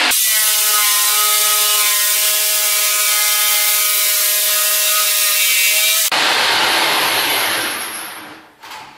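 Jigsaw with an ordinary, non-diamond blade cutting cement backer board, sped up so its running sound is a steady high-pitched whine. The whine stops abruptly about six seconds in, leaving a hiss that fades out over the next two seconds.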